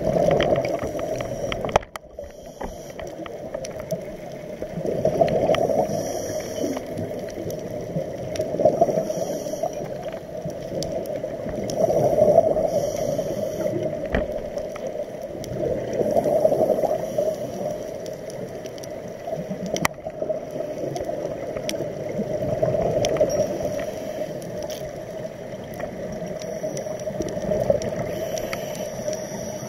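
A scuba diver's exhaled bubbles from the regulator, rising in a bubbly swell every three to four seconds with each breath and muffled by the underwater camera housing. A couple of sharp clicks sound, one about two seconds in and one about two-thirds of the way through.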